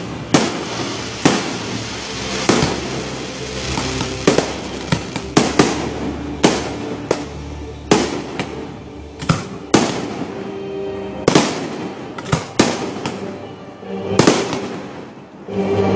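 Aerial firework shells bursting in an irregular series of loud bangs, about one a second, over music.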